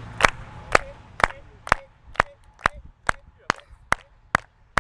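A steady series of short, sharp knocks, about two a second, evenly spaced.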